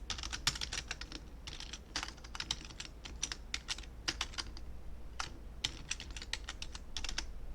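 Computer keyboard typing: irregular, quick keystroke clicks as a password is typed in.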